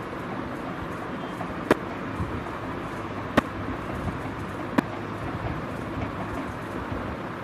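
Steady background noise with four sharp clicks in the first five seconds, each about a second and a half apart.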